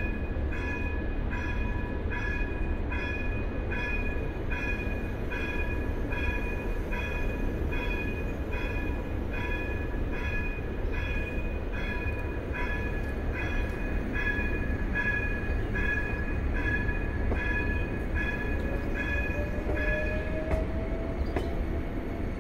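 Railway level-crossing signal bell ringing steadily, about one and a half strikes a second, over the low steady hum of the train standing at the platform. The bell stops near the end, as a faint whine rises in pitch and then holds.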